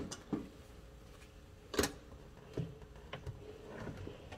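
A few light, separate knocks and clicks over a quiet indoor background, the sharpest about two seconds in.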